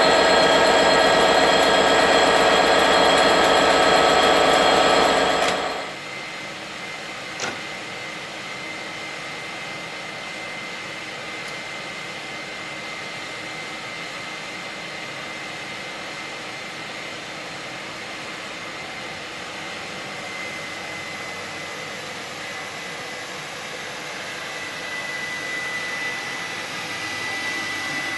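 Class 67 diesel locomotive's two-stroke V12 engine idling close by, a loud steady drone with several held tones, cut off suddenly about six seconds in. After that a quieter steady hum with a thin high whine, one sharp click, and a slight swell near the end.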